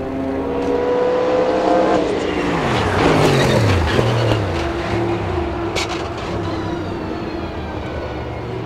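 Sauber-Mercedes C11's 5.0-litre twin-turbo V8 race engine at full song: the note climbs in pitch for about two seconds, then drops sharply and settles into a steady drone. A couple of sharp pops from the exhaust come about four and six seconds in.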